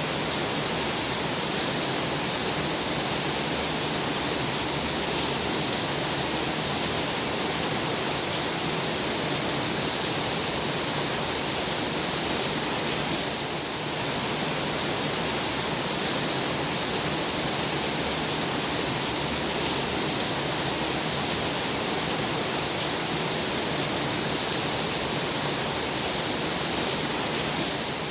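Heavy rain falling steadily, a dense even hiss that briefly softens about halfway through.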